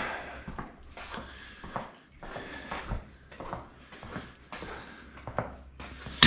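Footsteps and light knocks and rattles of carried tools while walking across a rubber-matted floor, ending with one sharp, ringing metallic clink.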